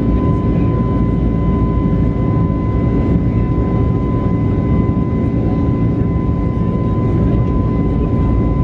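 Cabin noise of an Airbus A321neo in flight after takeoff: its CFM LEAP-1A turbofans and the airflow make a steady low rumble and rush, with a steady whine near 1 kHz and a fainter one an octave above.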